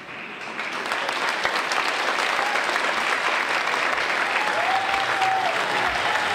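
Audience applause, swelling in the first second and then continuing steadily.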